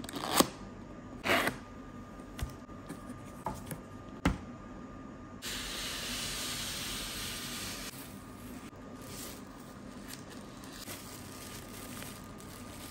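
Cardboard box being opened by hand: two short, sharp sounds as the flap is pulled free near the start, then a few light knocks. From about five seconds in, a few seconds of steady rustling from the plastic bag and styrofoam packing as the hot plate is lifted out, then lighter rustles.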